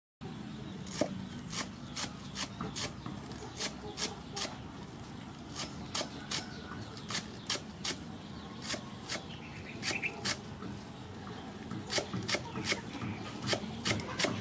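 Cleaver chopping green onions on a wooden cutting board: sharp knocks of the blade on the wood, about two a second, in an uneven rhythm.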